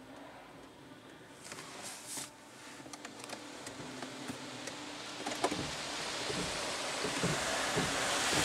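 Inside a car in a Christ car wash, a steady low hum gives way to a rising wash of water and polyethylene brush strands sweeping across the car's side and window. The sound grows steadily louder, with repeated soft thumps in the second half as the brush strands slap the bodywork.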